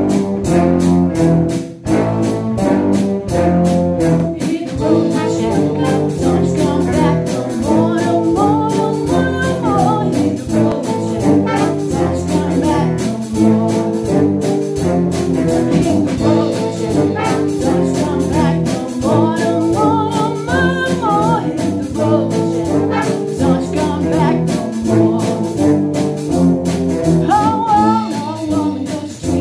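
Brass band playing a tune in chords over a steady drum beat, with a woman singing into a microphone over it at several points.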